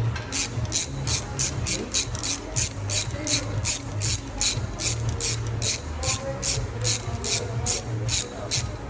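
Ratchet wrench clicking steadily, about four clicks a second, as bolts are turned.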